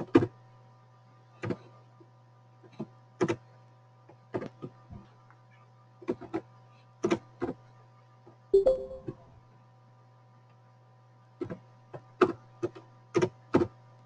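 Scattered clicks and taps of a computer keyboard and mouse, singly or in quick clusters of two or three, over a steady low hum. About eight and a half seconds in comes a louder, duller knock with a brief ringing tone.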